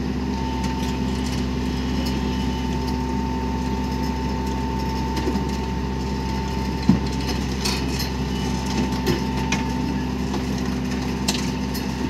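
Heavy construction machine's engine running steadily, with a thin high whine over it through most of the stretch. One sharp knock comes about seven seconds in, followed by a few lighter clanks.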